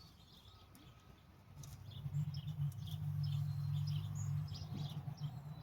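Small birds chirping intermittently outdoors. About a second and a half in, a steady low hum comes in under them and stays.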